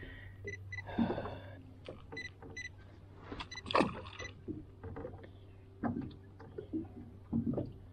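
Handling sounds in a small fishing boat as a bluegill is unhooked and the hook re-baited: scattered knocks and rustles, the loudest about four seconds in, over a low steady hum. Short high electronic beeps come in quick pairs three times during the first four seconds.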